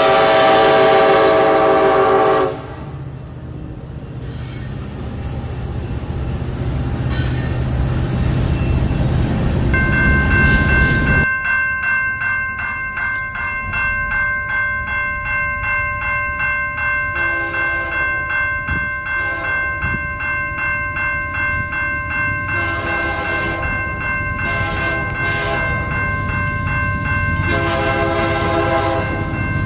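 A CN diesel freight locomotive's air horn blares for the first couple of seconds, then the train rumbles past. After that a railroad crossing bell rings with quick, regular strokes while an approaching locomotive sounds its horn in three blasts, the last one long.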